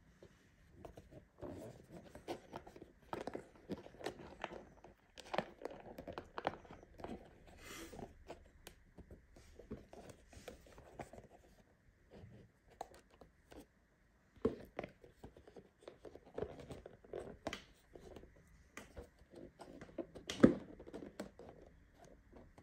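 Small cardboard box for a diecast model car being handled and turned in the hands, with rubbing, scraping and light tapping on the card. A sharp knock comes about twenty seconds in and is the loudest sound.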